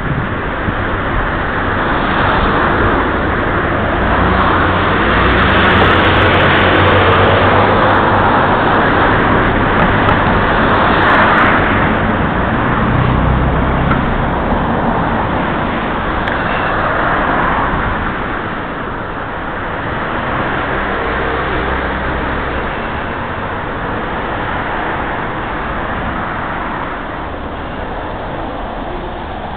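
Road traffic on a city street: a steady wash of passing cars with low engine rumble, swelling for several seconds in the first half and easing off after that.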